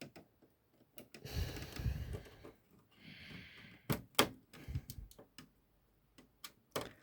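The power supply being handled and fitted into an original Xbox's case: a run of sharp clicks and knocks of parts against the casing, with scraping and rustling between them.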